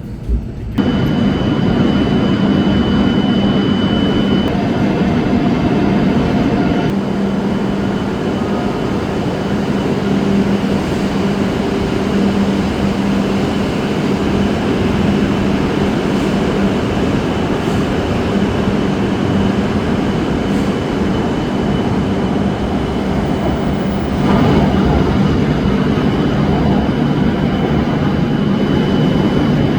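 Running noise of an E7-series Shinkansen heard from inside the train at speed: a steady loud rumble and rush with a low hum and a faint high whine. It gets louder suddenly just after the start and again about 24 seconds in.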